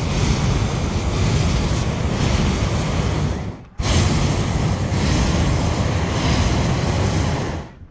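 Hot air balloon propane burner firing in two long blasts of about four seconds each, a loud steady rush that starts and stops abruptly with a short break between blasts.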